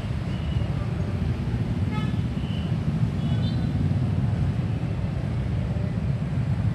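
Dense street traffic, mostly motorcycles and scooters passing close by, with a continuous engine rumble. A short horn toot sounds about two seconds in.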